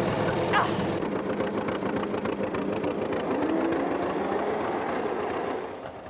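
Fordson tractor engine running steadily with a fast, rattling beat as the tractor drives off across the field, freshly started by the starting handle. The sound falls off a little near the end.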